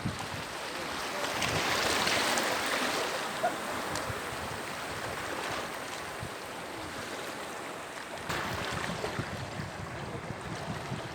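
Sea waves breaking and washing ashore, one surge swelling about two seconds in and another near eight seconds, with wind buffeting the microphone.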